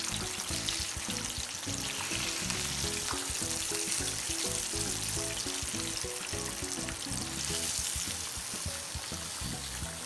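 Tilapia fillet deep-frying in hot oil in a pan: a steady crackling sizzle. Background music plays underneath.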